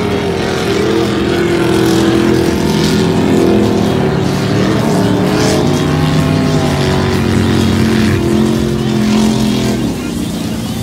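Engines of ice-racing cars running on the course, their pitch rising and falling as they rev and lift; it grows a little quieter near the end.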